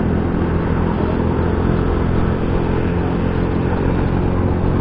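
Motorcycle engine running steadily on the move, with road and wind noise, picked up through a DIY external microphone on an action camera.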